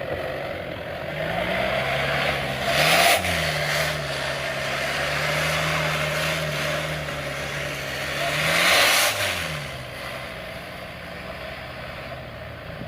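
Off-road 4x4's engine revving hard under load, its pitch climbing, falling back and holding, with two louder surges about three and nine seconds in.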